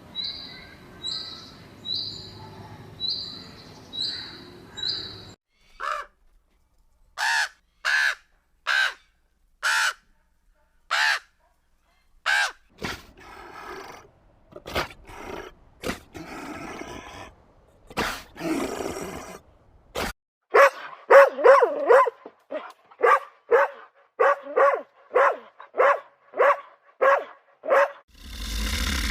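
A run of animal calls: short high chirps about once a second, then after a pause a series of harsh, caw-like calls every second or so, and near the end a faster run of calls about two a second.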